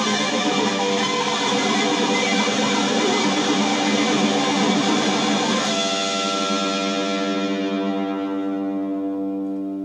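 Guitar music, strummed, ending about six seconds in on a held chord that rings on and slowly fades.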